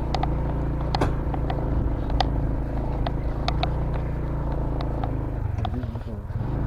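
Motorcycle engine running steadily at low speed, with short sharp clicks and knocks scattered through. The engine note dips briefly about five and a half seconds in.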